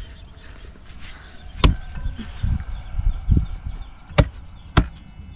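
Long-handled metal-bladed digging tool chopping into a rotten coconut-palm stump: three sharp strikes, about a second and a half in and twice close together near the end, with softer dull thuds between them as the rotten wood is hacked open.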